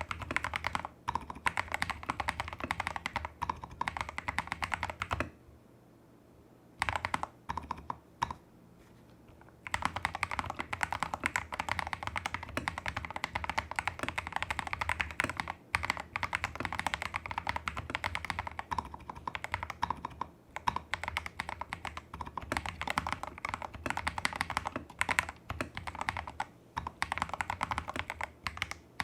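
Fast, continuous typing on a Tester68 custom mechanical keyboard with lubed Holy Panda-clone tactile switches, XDA-profile keycaps, a taped PCB and modded stabilizers. Dense clatter of keystrokes, with a pause of about four seconds a few seconds in, broken by a few single keystrokes.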